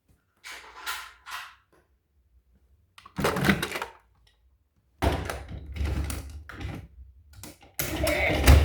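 Short, irregular bursts of clattering and rustling handling noise. Music begins just before the end.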